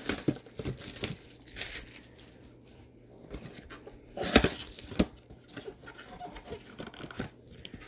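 A cardboard trading-card box being handled and opened: scattered light taps, scrapes and rustles of cardboard, with two louder knocks about four and five seconds in.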